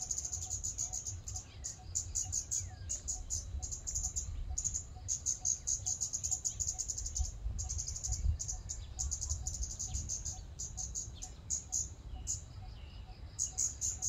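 Scarlet-backed flowerpecker calling: runs of rapid, thin, very high ticking notes, broken by short pauses.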